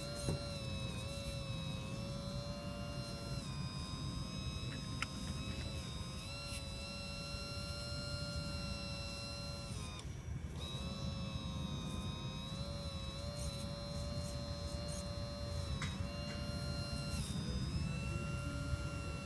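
Hydraulic pump motor of a radio-controlled hydraulic excavator whining steadily. Its pitch dips and steps back up every few seconds as the boom, arm and bucket are worked through the sand, with a few faint clicks.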